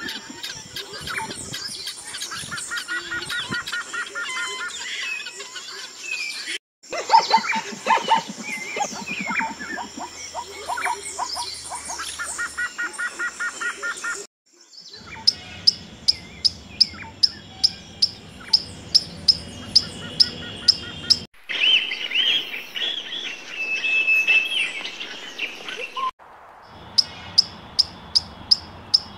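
Helmeted guineafowl calling, a dense mix of chirps and a rhythmic chattering. This is followed by runs of short high chirps repeated about three times a second, broken by brief gaps.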